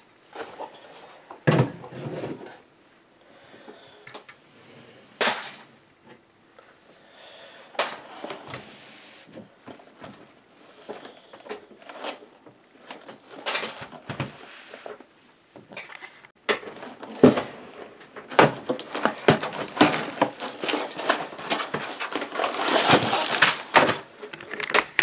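Handling of a LEGO set's cardboard box and its sealed plastic parts bags: scattered clicks and knocks of the box being turned and set down, then denser rustling and crinkling of plastic bags near the end.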